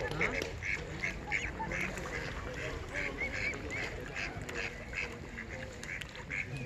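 A group of mute swan cygnets peeping, a quick run of short, high calls, several a second, some with a slight upward lilt, with ducks among them.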